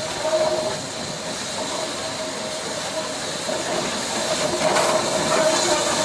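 Steam locomotive hissing steam: a steady hiss with a faint held tone running through it, getting a little louder near the end.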